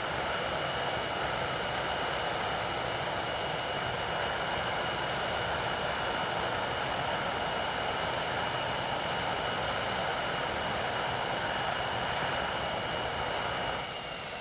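English Electric Lightning's two Rolls-Royce Avon turbojets running steadily: a jet rush with a high, steady whine. Near the end the level drops and the whine begins to fall as the engines are shut down and run down.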